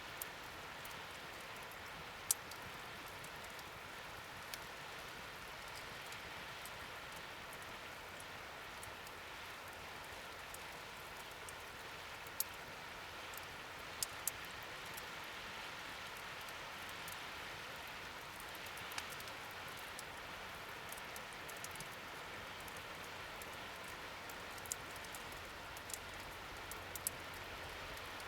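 Wood fire burning in a fire pit: a steady crackling hiss with a dozen or so sharp pops scattered through it.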